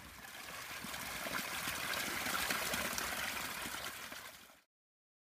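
Water pouring from a bamboo spout and splashing onto wet rocks: a steady rushing splash that grows louder, then fades and cuts off about four and a half seconds in.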